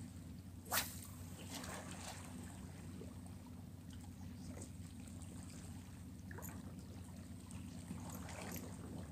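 Small waves lapping and trickling against shoreline rocks, with a sharp click about a second in.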